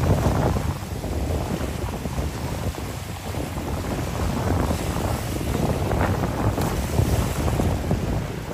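Wind buffeting the microphone, rising and falling unevenly, over the wash of waves on the beach.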